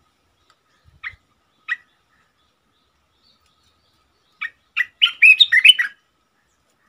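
Olive-winged bulbul calling: two short notes about a second in, then a quick, louder run of song notes near the end.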